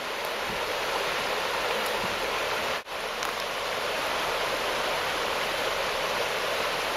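A small brook babbling: a steady rush of running water, briefly cutting out about three seconds in.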